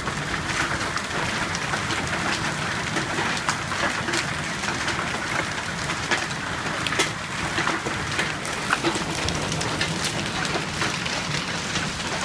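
Hailstones and heavy rain pelting down: a dense, steady patter broken by many sharp, separate clicks of stones striking hard surfaces.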